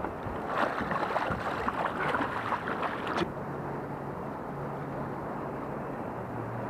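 Water splashing and wind buffeting the microphone on a small open skiff, cutting off abruptly about three seconds in. Then the steady low hum of a boat motor running, its note dropping slightly near the end.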